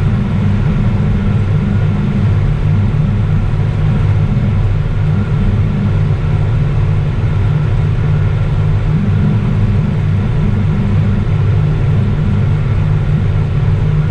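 Tractor engine running steadily under load while mowing, a deep, even drone.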